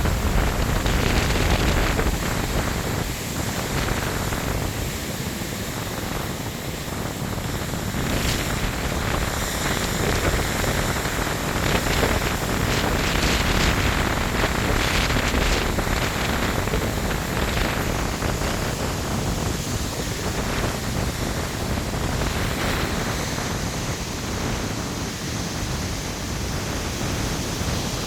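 Storm wind gusting hard across the microphone, mixed with ocean surf breaking, a dense rushing noise that swells and eases over several seconds.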